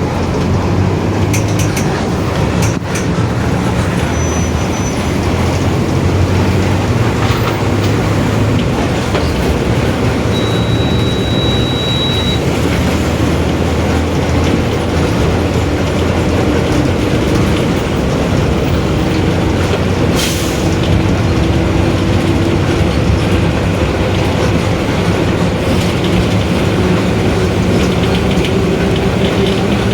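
Mercedes-Benz OF-1721 BlueTec 5 bus's diesel engine and drivetrain running under way, with body rattles and a few sharp clicks. A noisy, growling differential whines along with it, in a tone that rises slowly in pitch through the second half.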